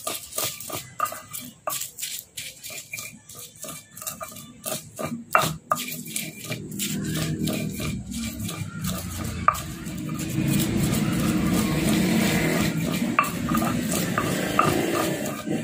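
Stone pestle (ulekan) crushing and grinding green chillies, garlic and salt on a stone cobek mortar into sambal paste: quick knocks about two to three a second at first, turning into a steadier scraping grind that gets louder about two thirds of the way in.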